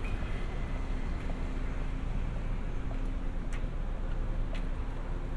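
City street ambience: a steady rumble of passing traffic with wind buffeting the microphone. Two short clicks come about a second apart midway through.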